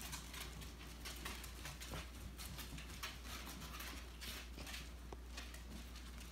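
Basset hound puppies' paws and claws pattering on a tile floor: a quick, irregular run of light ticks, over a low steady hum.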